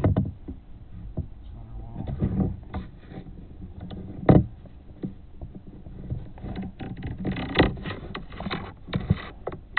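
Irregular handling noise from a borescope probe and its cable being worked by hand: scraping and rustling with several sharp knocks, the loudest about four and a half seconds in and a busier stretch of scraping near the end.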